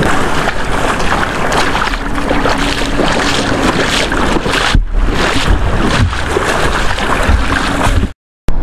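Water splashing and sloshing as a mesh basket of freshly dug purple varnish clams is swished in shallow tidal water to rinse out the mud, with wind buffeting the microphone. The sound cuts out briefly near the end.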